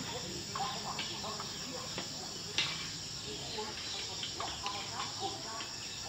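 Insects and birds chirping in many short, scattered calls over a low steady hum, with one sharp click about two and a half seconds in.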